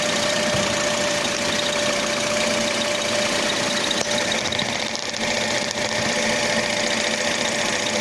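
Toyota Corolla E150 (1.8) running, with a thin, steady whistle held at one pitch over the engine noise: the whistle from the gearbox.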